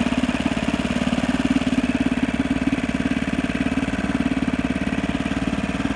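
1962 Montgomery Ward Sea King 3 HP single-cylinder two-stroke outboard motor running steadily, a rapid, even train of firing beats.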